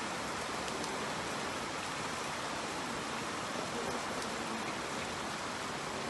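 Steady rain falling on wet paving blocks: a dense, even hiss with a few individual drop splashes ticking through it.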